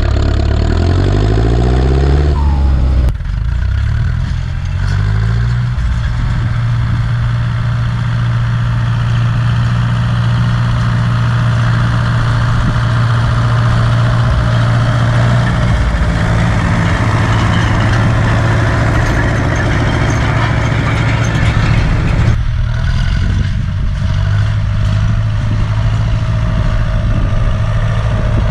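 Ursus C-360 tractor's turbocharged four-cylinder diesel engine pulling a land roller in third gear at full throttle. It revs up over the first few seconds, then runs steadily under load, with a brief dip about two-thirds of the way through before settling again.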